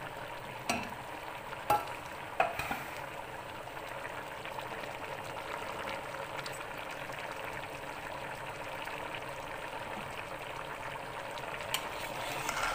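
Pot of pulao rice boiling hard in its cooking water, a steady bubbling sizzle as the water cooks down. Three sharp knocks come in the first few seconds.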